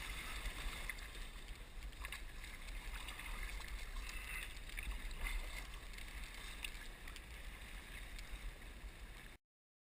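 Water splashing and trickling around a kayak, with small drips and splashes from paddling over a steady low rumble. It cuts off suddenly near the end.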